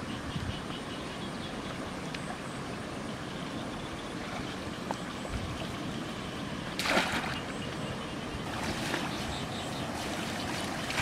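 Water trickling and splashing, with one louder splash about seven seconds in.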